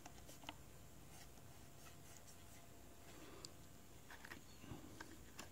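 Near silence, with a few faint clicks and light rubbing from hands handling a plastic quadcopter drone and its propeller.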